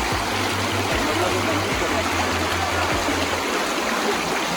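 Steady rush of flowing water from a rain-fed stream or waterfall, an even noise with no pauses.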